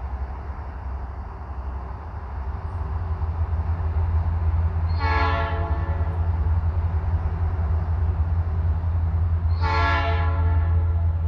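Diesel freight locomotive's air horn sounding two short blasts, about five seconds apart, over the rumble of the locomotives' engines, which grows louder a couple of seconds in as the train approaches. The lead unit is a high-hood GP38-2.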